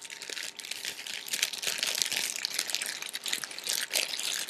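Thin clear plastic toy bags crinkling, a dense crackle that keeps up without a break.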